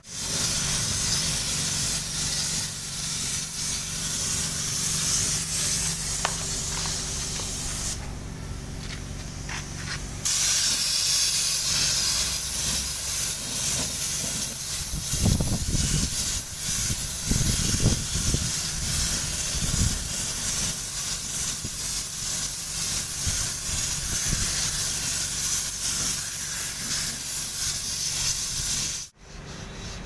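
Gravity-feed air spray gun hissing steadily as it sprays primer surfacer. The spray eases off for about two seconds some eight seconds in, resumes, and stops abruptly just before the end.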